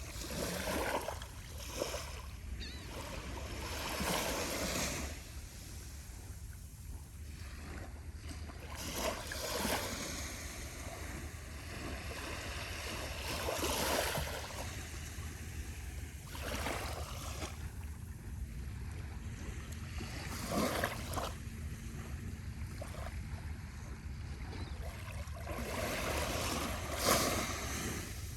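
Small waves on a very calm sea breaking and washing up the beach, a soft splash every few seconds over a steady low rumble.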